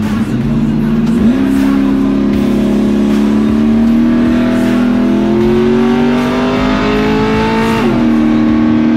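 Pickup truck's engine heard from inside the cab, pulling hard under acceleration: its pitch jumps up about a second in, climbs steadily for several seconds, then drops sharply near the end.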